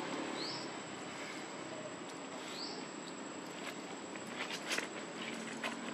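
Outdoor ambience: a steady hiss with a thin, high, steady tone, two short rising chirps about two seconds apart, and small clicks and rustles in the second half.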